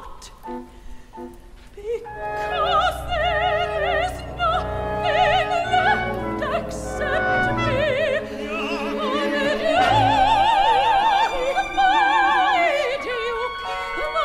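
Operatic female voice singing with a wide vibrato over instrumental accompaniment. It comes in about two seconds in after a sparse, quieter opening, and holds long, loud high notes near the end.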